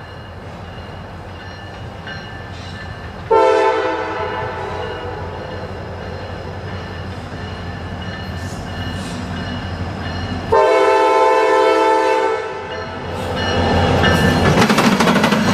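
Norfolk Southern diesel locomotive sounding its air horn for a grade crossing: a long blast from about three seconds in that slowly fades, then a second loud blast about ten seconds in. Near the end the engine's rumble and the clatter of wheels on rail swell as the locomotive passes close by.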